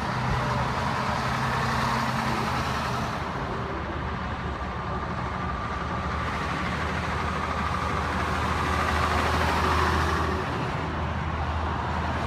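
Historic Scania trucks' engines running as the trucks drive past one after another, with the loudest passes about two seconds in and again near ten seconds, over a steady wash of motorway traffic.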